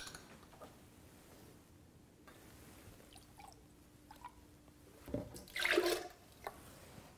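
Vegetable juice poured from a glass measuring cup into a blender jar: a splashing pour lasting about a second, about five seconds in, after a mostly quiet stretch.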